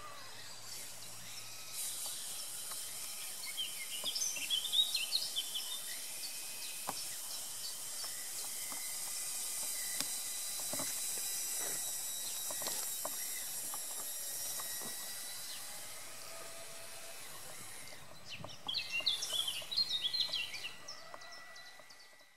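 Songbirds chirping in two short bursts, about four seconds in and again near the end, over a steady high hiss with scattered light clicks; the sound fades out at the very end.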